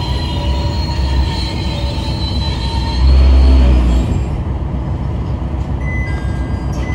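Small diesel railcar braking on its final approach to the terminus, its wheels squealing in several high, steady whines that fade out after about three seconds. A heavier low rumble follows for about a second, then the car runs on quietly.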